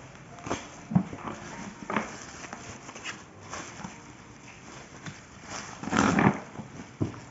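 Black bubble-wrap packaging crinkling and rustling as hands pull it open, in irregular crackles, with the loudest burst of rustling about six seconds in.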